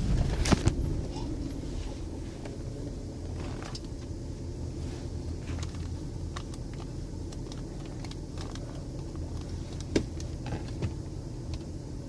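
Lincoln Aviator's 4.6-litre V8 running, heard from inside the cabin as a steady low rumble with scattered light clicks, one sharper click about ten seconds in. The engine is noisy with a clicking, knocking sound that the owner suspects comes from an exhaust leak or an EGR fault.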